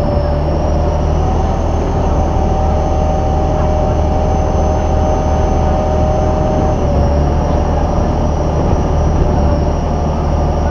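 Boat engine running under way: a loud, steady drone with a whine that steps up in pitch about a second and a half in and drops back about seven seconds in, over the rush of churned water.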